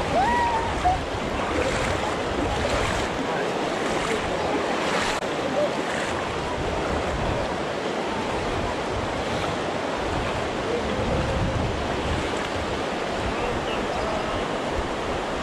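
Steady rush of the North Fork of the Virgin River flowing through the narrow canyon, with a few short splashes in the first several seconds.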